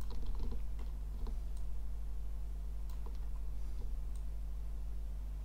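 Scattered clicks of a computer mouse and keyboard, a cluster in the first second and a few more around three to four seconds in, over a steady low hum.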